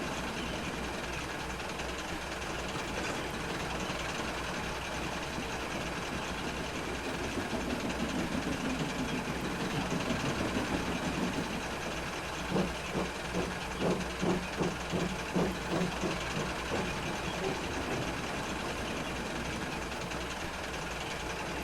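Steam train running with a steady hiss and rumble. From about halfway through, a run of regular beats about twice a second comes in for several seconds, then fades back into the steady running noise.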